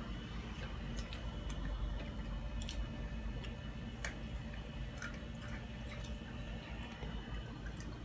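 Scattered small clicks and soft taps over a steady low rumble.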